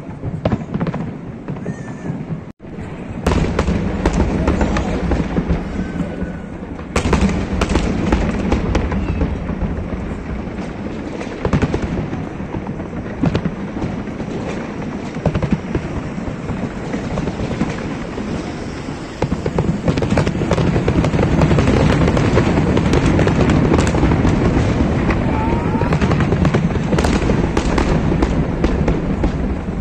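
Fireworks display: a continuous, dense barrage of shell bursts and crackling stars, with a low rumble underneath. It gets heavier about two-thirds of the way through.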